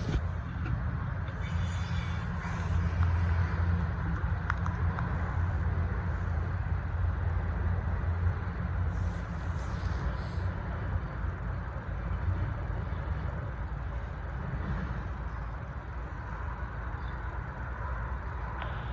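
A long freight train's cars rolling past on the rails: a steady low rumble of wheels on track, with a few faint clicks.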